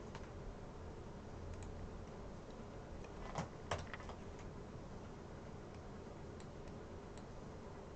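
Sparse clicks of a computer keyboard and mouse, with two louder clicks about three and a half seconds in, over a faint steady low hum.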